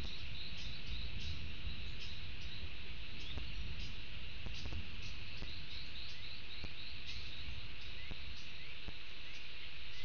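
Tropical forest ambience: a steady high insect drone with short, high chirps repeating several times a second, over a low rumble.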